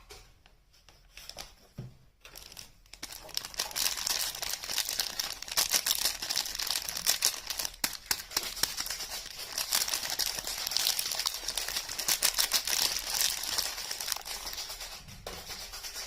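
Soap packaging being crinkled and torn open by hand: a dense run of crackling starts about three seconds in and eases off near the end.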